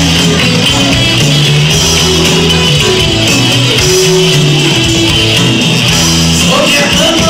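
Live pop band playing an instrumental passage, with electric bass guitar holding steady notes under guitar and drums.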